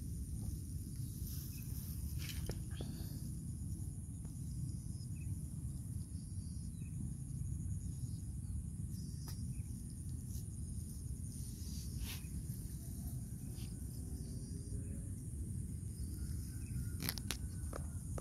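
Outdoor ambience: a steady high insect drone over a constant low rumble, with a few faint clicks scattered through.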